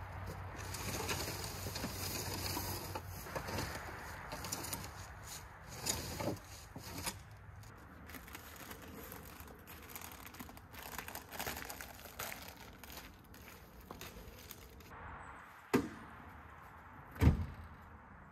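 Rustling and handling noises of camp gear being moved about, with two sharp knocks about a second and a half apart near the end, the second the louder.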